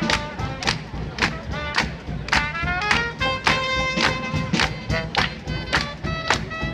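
Live acoustic swing-jazz band playing for Lindy hop dancers: a wind-instrument melody over upright bass, with a steady beat of sharp strikes about twice a second.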